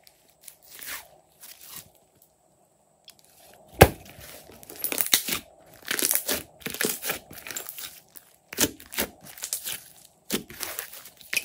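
Slime being kneaded and squeezed by hand, crackling and popping in irregular clusters as air trapped in it squelches and bursts. It is sparse and soft at first, then a sharp pop nearly four seconds in is followed by denser crackling.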